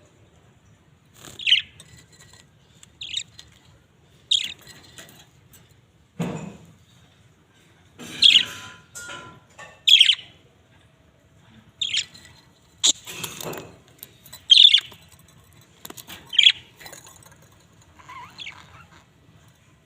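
Pet budgerigars giving short, sharp chirps, one every second or two, with a couple of duller, lower sounds among them, about a third of the way in and again past the middle.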